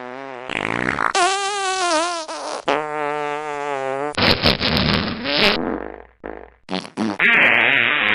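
A rapid string of different fart sound effects spliced back to back with abrupt cuts. Some are long buzzy tones whose pitch wobbles up and down, others are raspy and sputtering, and a loud, long raspy one starts near the end.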